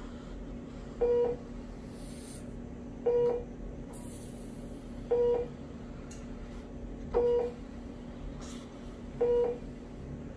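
Hospital bedside medical equipment alarm beeping: five short, identical beeps about two seconds apart, over a steady low hum.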